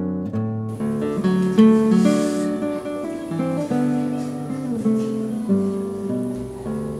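Background music: acoustic guitar playing a plucked melody of quickly changing notes.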